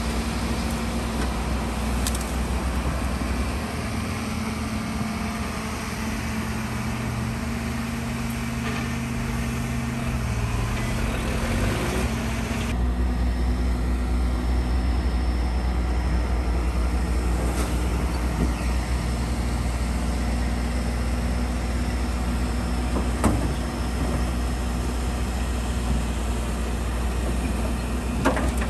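Heavy earthmoving machinery's diesel engines running steadily, a deep drone with a sudden change in character about halfway through, and a couple of short metallic knocks near the end.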